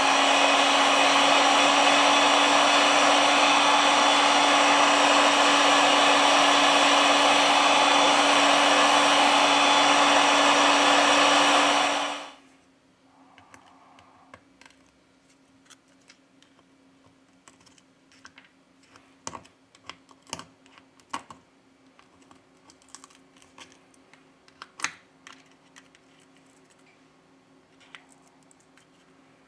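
Heat gun blowing steadily with a low hum under it, heating the back glass to soften its adhesive, then switched off suddenly about twelve seconds in. After that, faint scattered clicks and taps of small tools.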